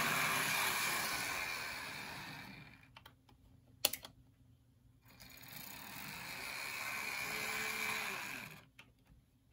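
Rivarossi 4-4-0 HO scale model steam locomotive running at full speed: the can motor and metal gearing make a steady whir with light clicking from the wheels on the track. It fades as the engine runs away around the loop, comes back about five seconds in as it nears again, and drops off near the end.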